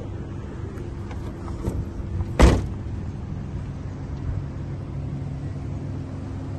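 The rear tailgate of a Toyota Wish minivan is slammed shut with one loud thud about two and a half seconds in, after a few light clicks. A steady low hum runs underneath.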